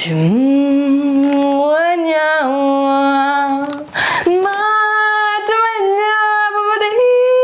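A woman singing unaccompanied and without words, in long held notes that slide between pitches: one phrase of about four seconds, a breath, then a second, higher phrase.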